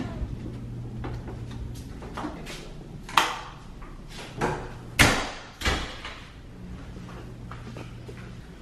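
Dorm room doors being opened and shut: a few short knocks and thumps, the loudest about five seconds in, over a low steady hum.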